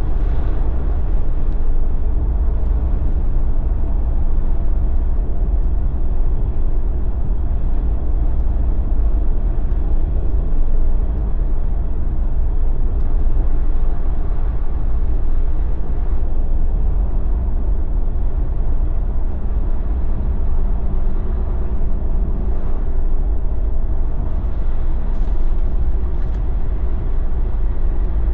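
Jeep driving at a steady speed: a steady low rumble of engine and tyre noise on the road.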